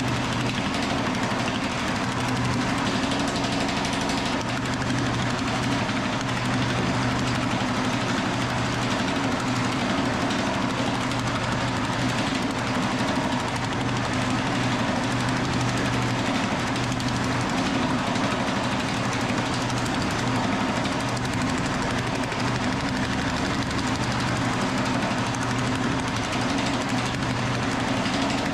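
Scrap-built Pullmax-style power hammer running steadily, its reciprocating die rapidly pounding a sheet-metal dish being shaped into a bowl, over a constant low motor hum.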